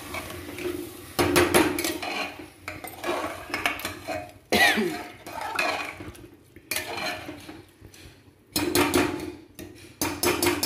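A metal ladle stirring rice and dal with freshly added water in a pressure cooker: scrapes and clinks against the pot in bursts, with short pauses between them.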